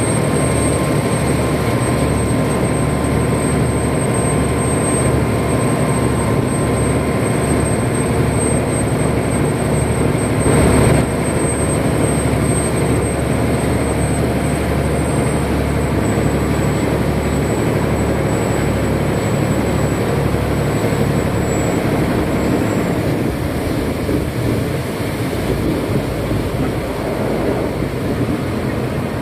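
Canal express boat's engine running loud and steady under way, with water rushing past the hull. A brief louder rush comes about eleven seconds in, and a thin high whine fades out about two-thirds of the way through.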